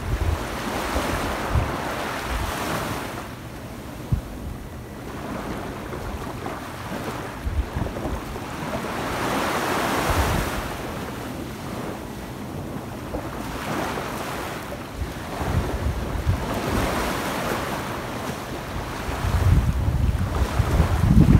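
Small sea waves breaking and washing up a sandy beach, the surf hiss swelling about three times, the middle wash loudest. Wind buffets the microphone in low rumbles throughout, loudest near the end.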